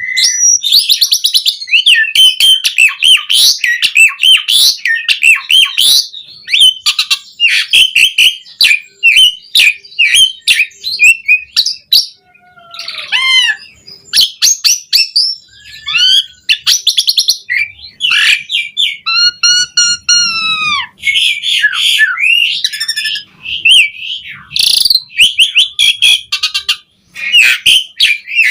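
Asian pied starling (jalak suren) singing a long, varied song packed with imitated phrases: rapid clicks and chatter mixed with whistled notes that rise and fall, and a harsh, ringing call about two-thirds of the way through.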